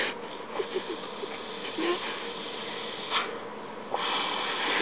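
Breathy mouth sounds of a person miming smoking a cigarette: a few faint lip clicks and puffs, then a stronger, long hissing exhale through pursed lips about four seconds in.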